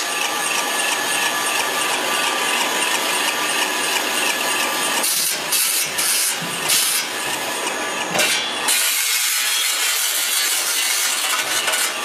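Single-screw food extruder running with a steady mechanical hum and whine. About halfway through there is a cluster of short scraping knocks from metal parts being handled at the die head.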